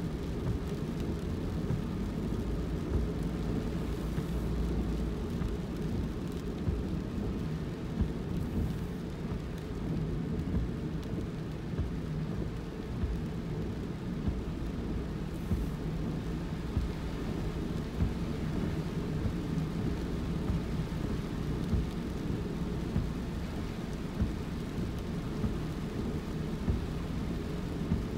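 Car driving on a wet road in the rain: a steady low rumble of tyres and road noise, with a short knock about every two seconds.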